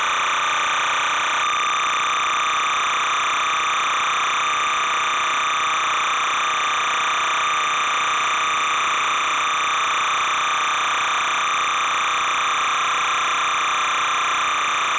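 Steady static hiss that stays the same throughout, with no crowd swells, whistles or hits in it.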